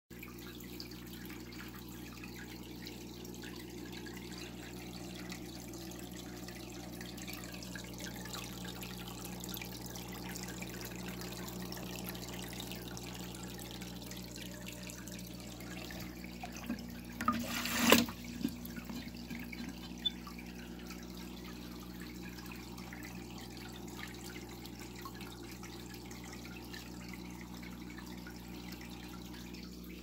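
Aquarium water trickling and dripping steadily over a low, steady hum, with one sharp knock a little past halfway.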